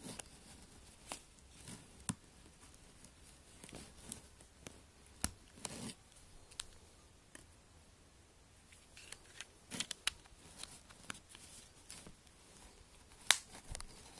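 Small scattered clicks, taps and scrapes of a Sony Xperia S smartphone's battery being seated back in and the phone being handled, with a sharper click about a second before the end.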